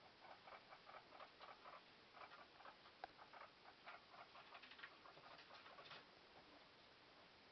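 Guinea pigs scampering around their cage: a faint, quick patter of small feet and scrabbling on the floor and wooden ramp, stopping about six seconds in.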